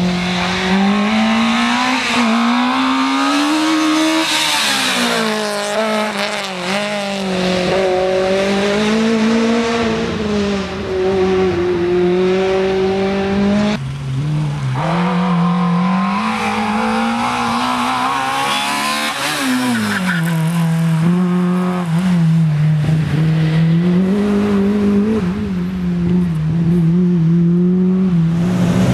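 Race-prepared slalom car engines held at high revs, the pitch rising and dipping as the drivers work the throttle through the cone sections. The sound breaks off about halfway through as a second car takes over.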